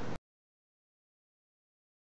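Dead digital silence: a steady background hiss cuts off abruptly right at the start and nothing follows.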